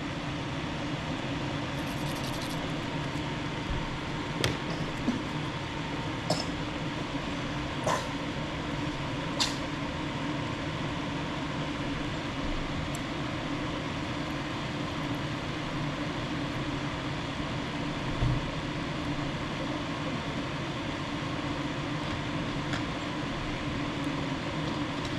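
Steady fan hum with a faint even tone, broken by a few light clicks and taps.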